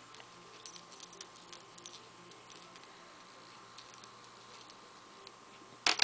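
Small metal jewellery parts (jump rings, a charm and the clasp) clicking and clinking lightly and irregularly as they are handled, with a sharper, louder metallic clink near the end.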